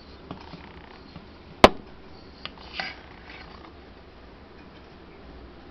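Stainless steel bowls knocking together as sifted flour is tipped from one into the other: one sharp metallic knock about a second and a half in, with a few lighter taps and scrapes around it.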